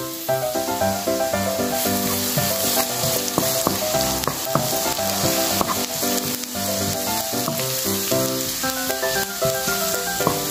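Minced garlic sizzling in hot oil in a non-stick pan, stirred and scraped about with a wooden spatula. The sizzle grows louder about two seconds in. Background music with a melody plays over it.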